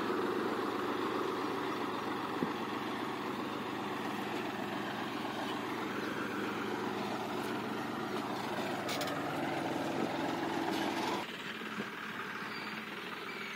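John Deere 5103S tractor's three-cylinder diesel engine running steadily under load as it pulls a tine cultivator through the soil between sugarcane rows. The sound drops off abruptly about eleven seconds in.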